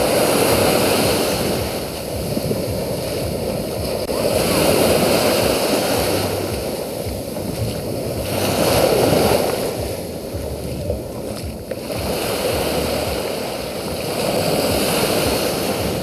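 Surf of a slightly rough sea breaking and washing up a sandy beach. It rises and falls every few seconds as each wave comes in.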